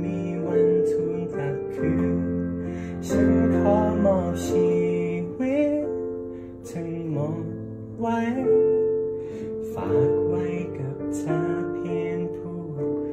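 Digital piano playing slow, sustained chords and a melody between sung lines, with a man's wordless vocal runs wavering over it in places.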